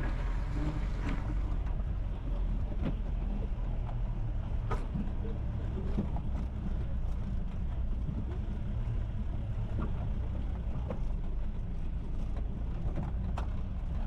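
Mahindra Thar jeep's diesel engine climbing a rough off-road track: a steady low drone with scattered knocks and rattles as the jeep bounces over the ruts.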